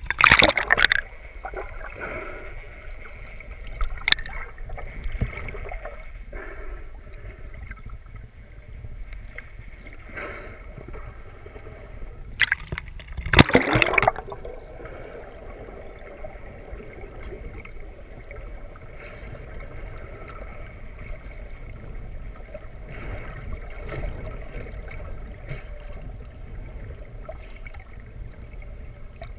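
Water sloshing and splashing against a camera at the sea surface, loudest at the start and again about halfway through. Between and after the splashes there is a steady muffled underwater rush.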